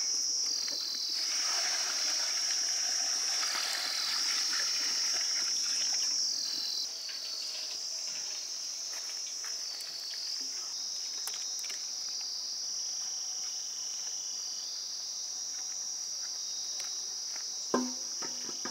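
Insect chorus chirring steadily at a high pitch, with a soft hiss under it for the first several seconds and a single sharp knock near the end.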